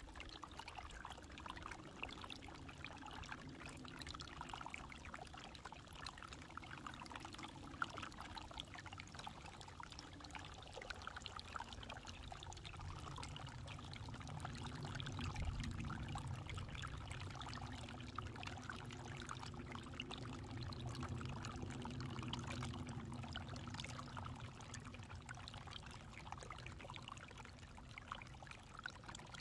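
Water trickling and spattering under a thin sheet of ice over rock, a steady run of fine drips and gurgles. A low rush swells in the middle and fades again.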